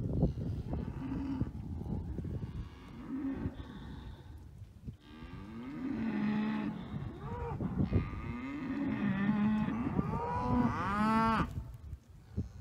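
Beef cattle mooing: several low calls one after another, the longest and loudest coming near the end.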